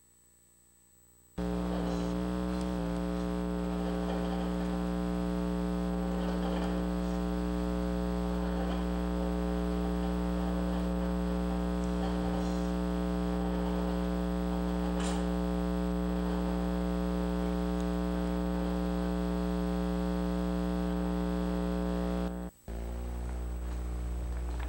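Loud, steady electrical mains hum: a low buzz with a stack of overtones. It starts about a second and a half in after near silence, cuts out for an instant near the end, and then resumes.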